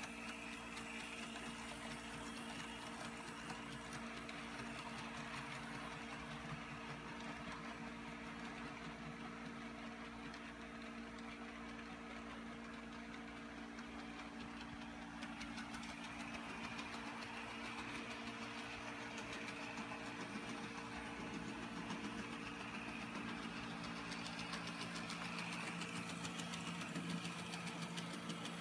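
Brass HO-scale 0-4-0 model steam locomotive, freshly cleaned and lubricated, running on the track: a steady whir of its small motor and gears with fine, rapid clicking of wheels on rail. A higher whine comes and goes and grows louder toward the end.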